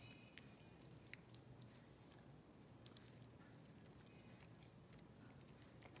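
Near silence, with faint sticky squishes and small clicks of hands rubbing honey mustard into raw chicken wings.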